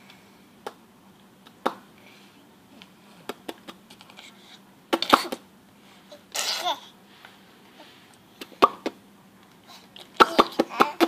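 A baby's short breathy giggles and squeals, one about six and a half seconds in, mixed with sharp clicks and taps that come in clusters about five seconds in and near the end.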